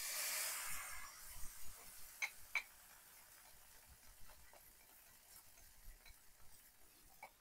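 Beaten eggs poured into a hot nonstick frying pan, a soft sizzle at the start that fades within about a second and a half. Then a few light clinks of a utensil against a glass bowl as the last of the egg is scraped out, two clearer ones a little over two seconds in.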